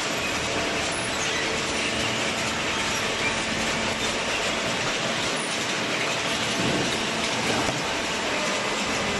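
Hydraulic cardboard baler running: a steady mechanical rattle with a faint hum underneath.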